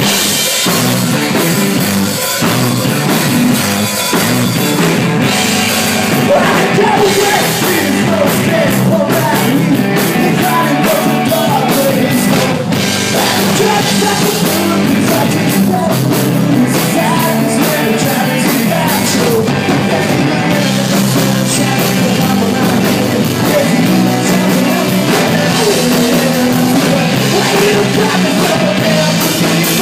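Live punk rock band playing loud: electric guitars, bass and drum kit, with a male singer on vocals.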